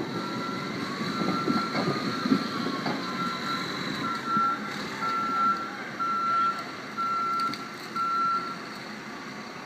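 Reversing alarm on heavy equipment beeping about once a second at one steady pitch, stopping near the end, over the low rumble of a diesel engine that fades after the first few seconds.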